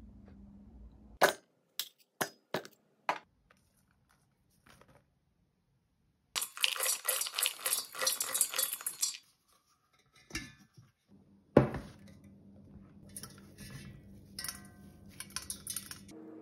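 Toasted slivered almonds poured from a pan into a stainless-steel food-processor bowl over dates, clattering for about three seconds. Before it come a few sharp clicks; after it, a single knock and light scattered ticks.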